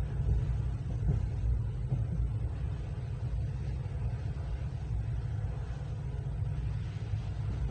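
Steady low rumble of a moving train, heard from inside the carriage.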